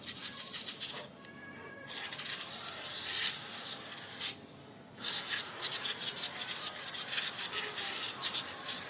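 Scrubbing and hissing from cleaning an air conditioner's coil, in three stretches with short breaks about a second in and about four and a half seconds in. Faint background music runs underneath.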